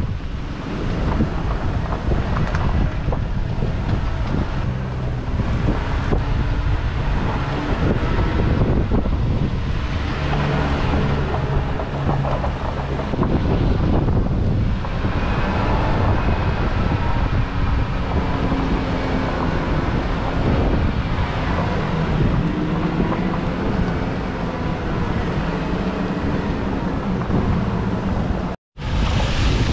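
2017 Toyota Tacoma pickup driving downhill on an off-road track, with steady engine and tyre noise and wind buffeting the microphone. The sound cuts out for a split second near the end.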